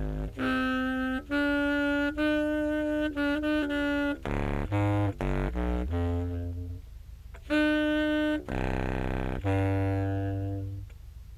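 A recorded contrabass clarinet phrase played back from a looper pedal: a slow melodic line of separate sustained notes that leaps between the middle register and very deep low notes, spanning the instrument's lowest low D to a high F, and fading out near the end.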